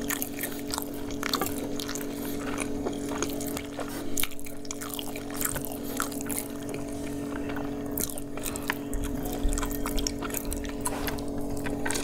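Wet chewing and mouth clicks of chicken biryani being eaten by hand, with many small irregular smacks and clicks, over a steady low hum.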